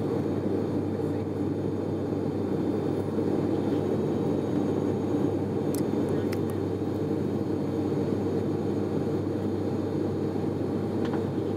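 Steady cabin drone of an ATR 72-500's twin Pratt & Whitney PW127 turboprops and propellers in the climb, with an even low propeller hum underneath.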